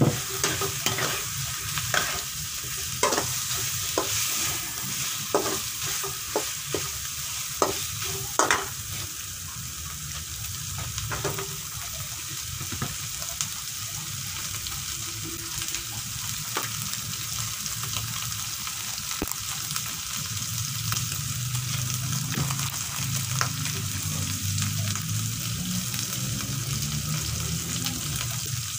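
Chicken pieces sizzling in a wok of fried spice paste, with a metal spatula scraping and knocking against the pan through the first dozen seconds or so. After that the frying goes on as a steady sizzle with only an occasional knock, and a low hum comes up in the last third.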